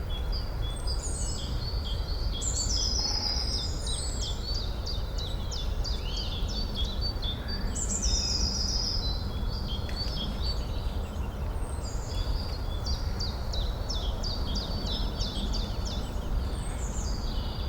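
Forest ambience of birds singing over a steady low background noise. The birds repeat high song phrases, each a downward-sliding whistle followed by a run of quick short notes.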